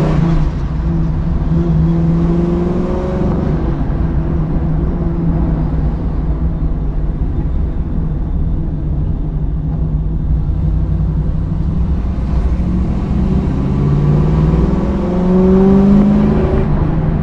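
Fuel-injected 396 big-block V8 of a 1970 Camaro heard from inside the cabin while driving. The engine note climbs as the car pulls away in the first few seconds, settles into a steady low drone while cruising, then climbs again as it accelerates about three-quarters of the way through.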